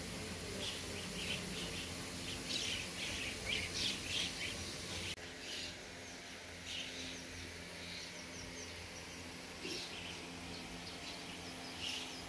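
Morning birdsong: many small birds chirping and calling in quick short notes, thickest in the first few seconds, over a steady low hum.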